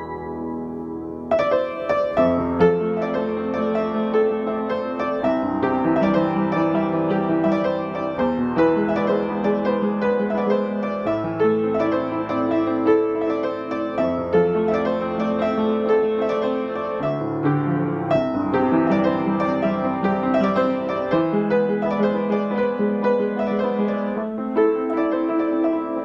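Piano music in a gentle pop-classical style. It is softer for the first second or so, then fuller and louder.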